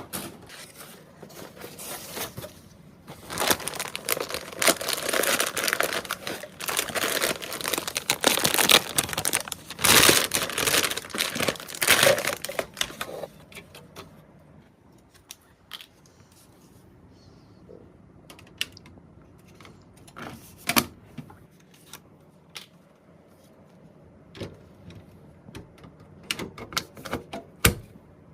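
Computer parts and their plastic packaging being handled: about ten seconds of dense crinkling and rustling, then scattered clicks and light knocks.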